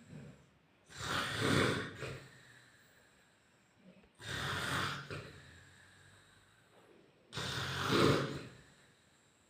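A sleeping man snoring: three snores about three seconds apart, each lasting about a second.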